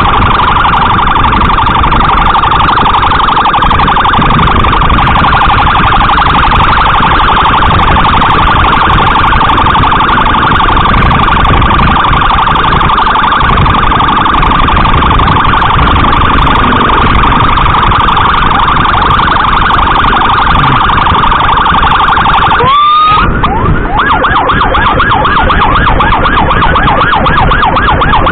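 Electronic emergency siren sounding loud and continuous, a steady high tone with a fast wobble. About 23 seconds in it breaks off briefly and switches to a quick repeating sweep, several times a second. Road and engine noise of the moving motorcycle runs underneath.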